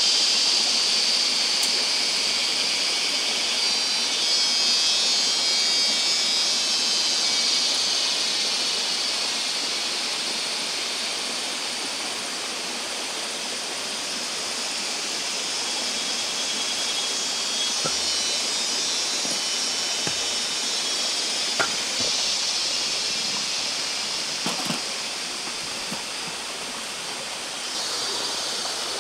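Evening insect chorus, a dense high buzzing that eases off mid-way and swells again near the end, over the steady rush of flowing stream water. A few light knocks of camp gear being handled in the second half.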